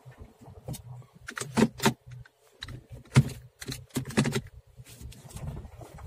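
Scattered, irregular light clicks and knocks inside a car's cabin, about a dozen short sharp sounds, the loudest a little after three seconds in.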